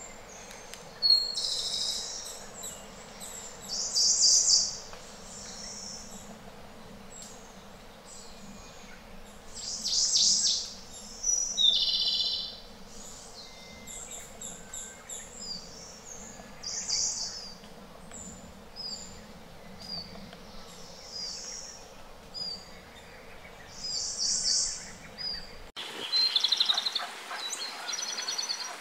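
Japanese robin singing: loud, high-pitched trilled phrases every few seconds, with quieter short notes between them over a steady low background hum. Near the end the hum cuts out abruptly as a different recording begins.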